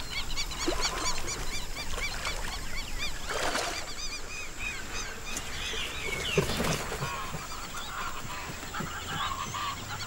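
Waterbird calls: many quick, high chirps repeating rapidly for the first three seconds or so, then scattered lower calls, with two brief whooshing sounds at about three and a half and six and a half seconds in.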